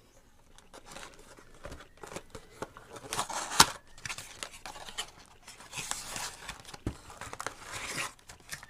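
Trading card box and packs being handled: packaging rustling and crinkling with scattered clicks and taps, and a sharp click about three and a half seconds in.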